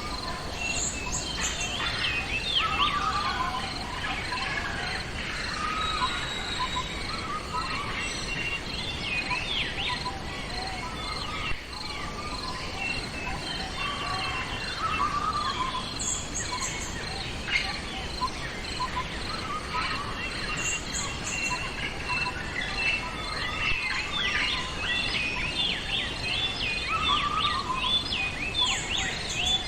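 Several songbirds chirping and warbling in short overlapping phrases, growing busier and denser near the end, over a steady background hiss of outdoor ambience with insects trilling faintly.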